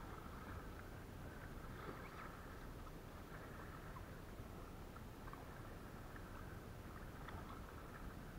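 Faint small splashes and drips of water around a kayak being paddled, with scattered light ticks over a steady low background noise.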